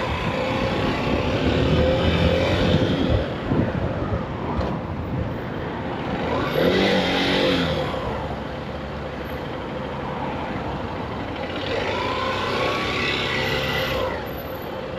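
Honda CB125F motorcycle's single-cylinder engine running as the bike filters slowly between queued cars, mixed with wind and surrounding traffic noise. The engine note swells up and back down about seven seconds in, and again more gently near the end.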